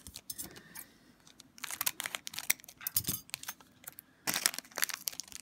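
Foil wrapper of a Upper Deck Portfolio hockey card pack crinkling and tearing as it is opened by hand, in several irregular bursts.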